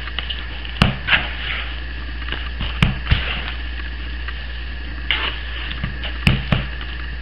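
Gloved hands kneading a raw ground beef mixture in a plastic bowl: wet squishing with the crinkle of plastic gloves and a few sharp clicks, over a steady low hum.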